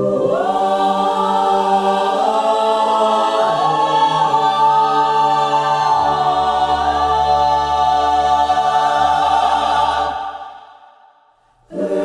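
Choral music: a choir singing long, sustained wordless chords that move slowly in pitch. It fades out about ten seconds in, with a brief near-silence before the music starts again at the very end.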